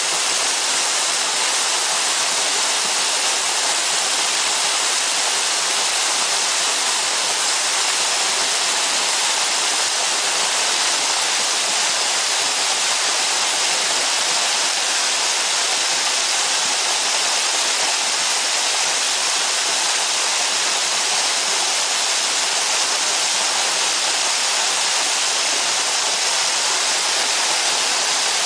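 Water from a small waterfall splashing steadily over rocks, a constant loud rushing hiss.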